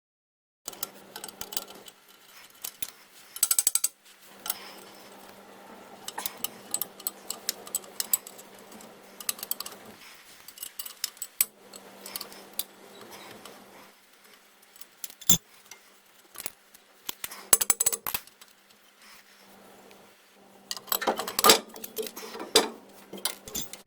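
Hand tools and loose metal parts clinking, clicking and clanking in irregular bursts while bolts are undone under a car, over a faint steady hum that comes and goes.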